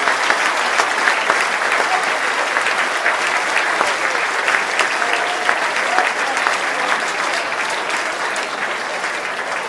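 Large audience applauding, a dense clatter of many hands clapping that slowly eases toward the end.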